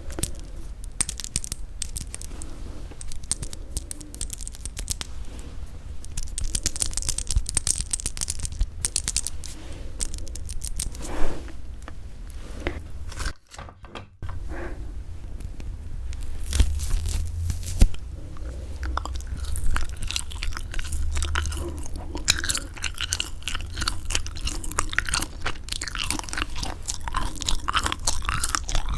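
Close-miked chewing of semi-dried squid: steady mouth sounds with many small clicks and moist smacks as the chewy flesh is bitten and worked. The chewing breaks off for a moment about halfway, then carries on.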